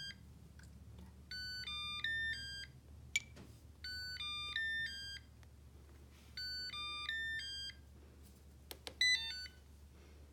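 Bagotte BG800 robot vacuum's built-in speaker playing its 'seek robot' locator tune: a short electronic melody of several quick beeps, repeated about every two and a half seconds, three times, then a shorter burst of beeps near the end.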